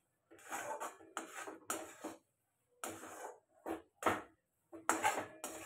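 Steel spatula scraping and stirring thick cooked semolina dough against the inside of a steel kadai, in about eight uneven strokes roughly half a second apart.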